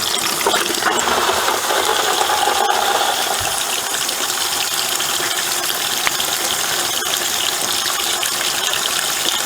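The spin dryer of a Giantex Costway 17 lb twin tub washing machine starting up and running, with a steady rushing, rattling noise of water and a spinning basket.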